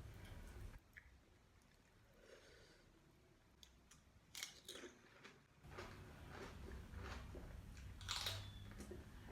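A person chewing crisp food close to the microphone, with wet mouth sounds and sharper crunches about four and a half and eight seconds in.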